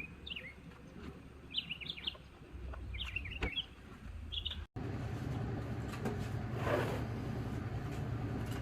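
Wild birds chirping in short clusters of quick rising and falling chirps over a faint low background. About halfway through, the sound cuts to a steady low rumble with a brief hiss.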